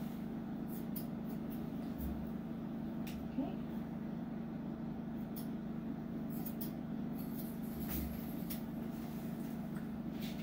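Grooming scissors snipping now and then, a few short faint snips scattered over a steady low hum.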